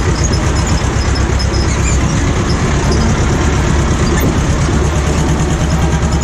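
Ursus C-330M tractor's two-cylinder diesel engine running steadily and loud.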